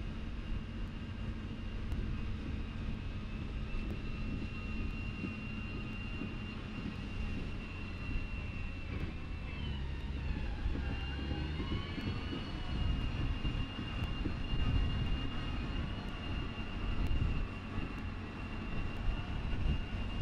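Machinery of the Ultra Heavy-Lift Amphibious Connector (UHAC) tracked amphibious prototype running, a steady high whine over a low rumble. About ten seconds in, several tones dip in pitch and climb back over a couple of seconds.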